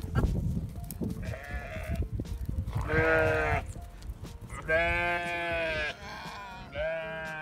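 Sheep bleating again and again: several short bleats and one long one about five seconds in. A low rumble on the microphone is heavy in the first second.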